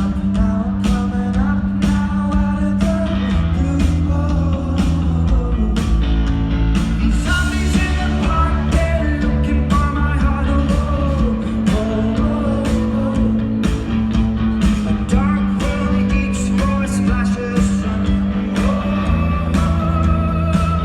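Live rock band playing, with a lead singer's voice over a steady drum beat, bass and guitar.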